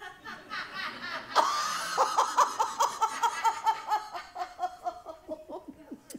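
A woman's high-pitched laugh, a long run of quick "ha"s that breaks out loudly about a second and a half in, then slowly falls in pitch and fades away. It is laughter at a just-spoken joke.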